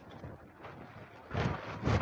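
Wind buffeting the microphone of a handheld camera on a walk along a sandy hill trail, with two louder bumps in the second half.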